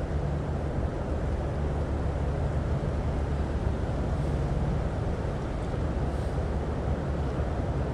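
Steady rush of floodwater pouring through the spillway, a constant deep rumble with a hiss over it and no let-up.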